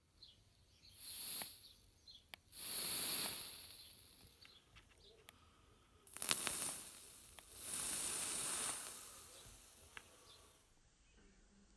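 Freshly wicked fused clapton vape coil sizzling and crackling as it is fired in bursts: four hisses of about a second each, with sharp crackles through them.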